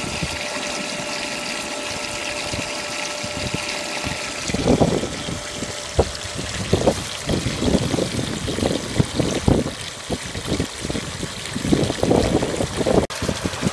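Water pouring and splashing steadily from a small solar DC submersible pump's corrugated stainless-steel discharge hose back into the plastic tub the pump sits in, the pump running off a PV panel. From about four seconds in, irregular low gusts of wind buffet the microphone.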